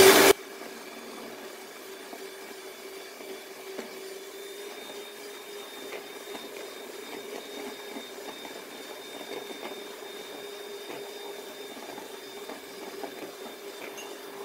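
Sinbo electric hand mixer beating eggs and sugar into a foam, its motor running steadily with a faint, even hum.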